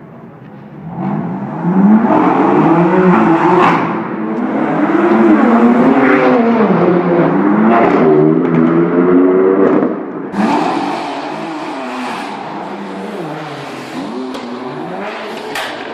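BMW performance cars accelerating hard in a tunnel, their engines revving up and dropping in pitch again and again through gear changes, with a few sharp cracks. The sound is loudest for the first several seconds and falls to a lower, steadier level about ten seconds in.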